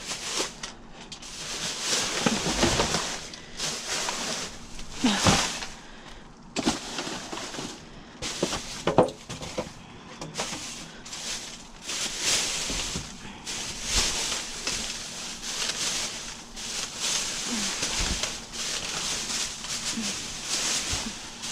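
Plastic trash bags and tissue-paper packing rustling and crinkling in irregular bursts as a reach grabber pokes and pulls through them in a dumpster.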